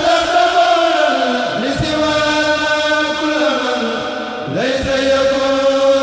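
Chanting of an Arabic Mouride khassida (devotional poem), sung in long drawn-out notes that slide in pitch at the start of each line; one line begins right at the start and the next about four and a half seconds in.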